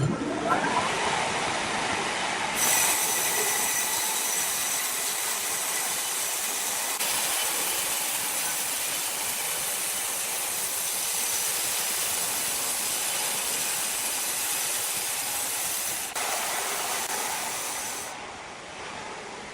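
Sawmill saw cutting through a log: a steady, high-pitched hissing whine that sets in abruptly, runs for about fifteen seconds, and dies away near the end.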